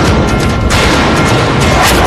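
Dramatic TV-serial sound effect: loud music layered with heavy booms and crashing hits.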